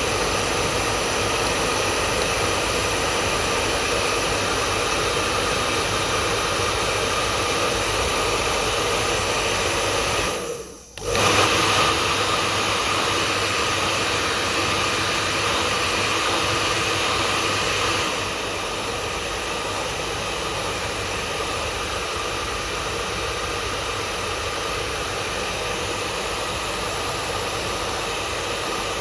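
Electric hair dryer running steadily: an even rush of air with a steady motor whine. About a third of the way through it dips out for under a second and comes straight back, and a little past halfway it settles slightly quieter.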